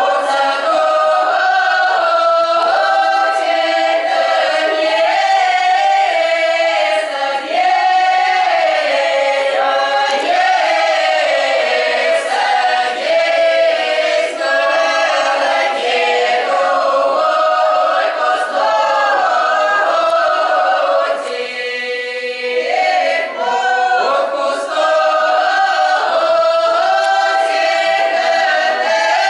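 A folk choir of women's and men's voices singing a Russian traditional song unaccompanied, in long held phrases. The singing thins briefly about 21 seconds in, between phrases.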